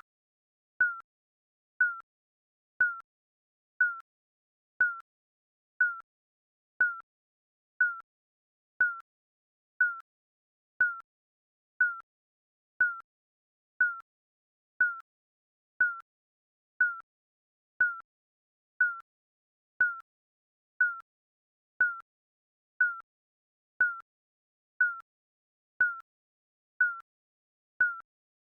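Digital countdown timer beeps: a short, high electronic beep once every second at a steady pace, each with a slight drop in pitch, marking off the seconds of the countdown.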